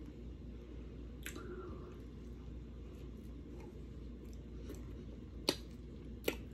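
Quiet eating sounds from chewing and handling a crispy chicken sandwich: a few faint clicks, then two sharper clicks near the end, over a low steady hum.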